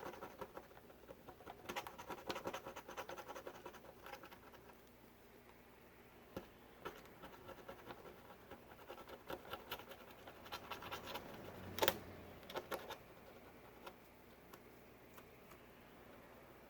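Faint scratching and small scattered clicks of hands and tools working on the tablet, with one sharper click about twelve seconds in.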